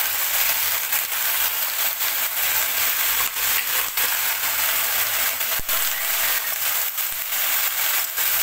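Mixed vegetables frying in hot oil in a metal kadai: a steady sizzling hiss, with a few sharp clicks of a metal spatula against the pan as they are stirred.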